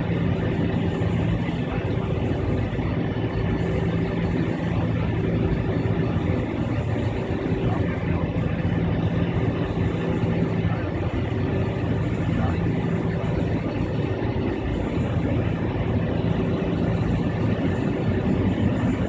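Cabin noise of an Avro RJ100 taxiing with its four turbofan engines at low power: a steady drone with a low hum running through it.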